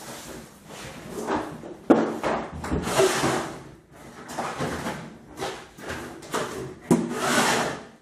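Handling noise as a storage box is opened and shut and a sheet of paper is taken out: two sharp knocks about five seconds apart, each followed by rustling.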